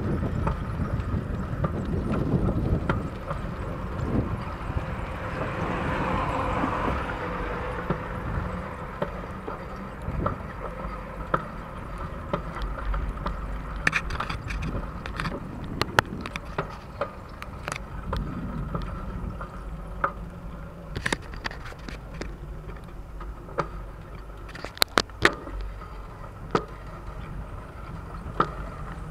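A bicycle riding along, heard from an action camera mounted on it: steady tyre and wind rumble, and from about halfway on, frequent sharp irregular rattles and clicks as the bike rolls over rough, cracked concrete.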